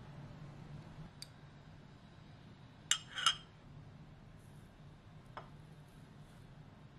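Quiet kitchen handling sounds: a light click, then a short sharp clatter about three seconds in, like a spoon or glass cup knocking on a countertop, and one more click near the end, over a low steady hum.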